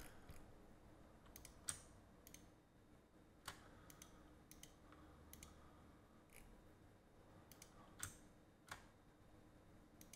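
Quiet, irregular computer mouse clicks, a dozen or so, with a faint low hum underneath.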